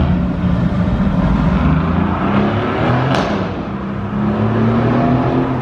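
A loud car engine accelerating on the street; its pitch sags in the middle, then climbs steadily as it revs up near the end.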